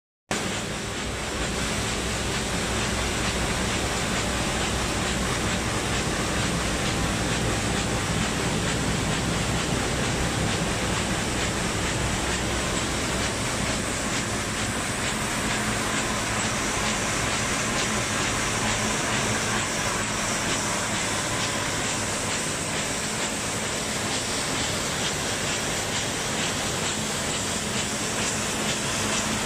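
Viola adult diaper production machine running: a steady, dense mechanical whir and clatter from its rotating drums, rollers and web conveyors, with a low steady hum underneath.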